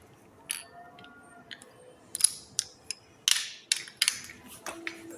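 Small hard toy trains being handled and moved, giving a string of sharp, irregular clicks and clacks, busiest in the middle of the stretch.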